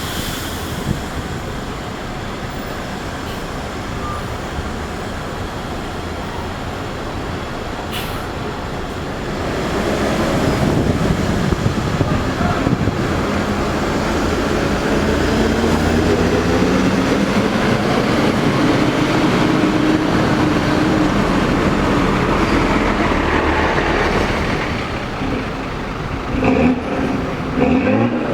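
Large diesel bus engine running. About ten seconds in it grows louder, its pitch rising and bending as the bus pulls through. A few short, uneven bursts come near the end.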